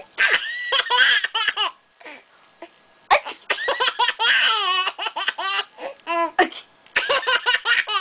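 A ten-month-old baby laughing in several runs of high-pitched giggles, with short pauses between them.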